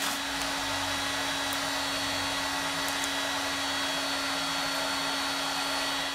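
Heat gun blowing hot air steadily, a rush of air with a steady low hum under it.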